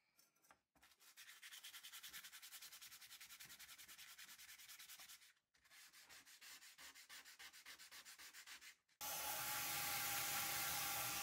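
A rusty steel knife blade being sanded by hand: two bouts of quick, even back-and-forth rubbing strokes. About nine seconds in, a louder, steady whirring with a faint whine takes over.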